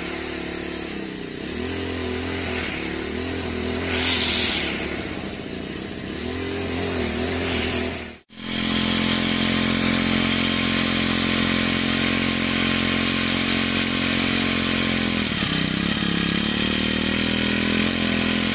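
Kawasaki 139F single-cylinder four-stroke grass cutter engine running on a test run after a piston ring replacement, revved up and down about every three seconds. After a brief break about eight seconds in, it runs steadily at high speed, dips briefly a few seconds before the end, then picks back up.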